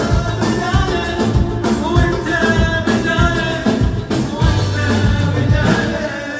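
Live band music: an Arabic pop song's instrumental passage with a drum kit beat, bass and a violin melody line.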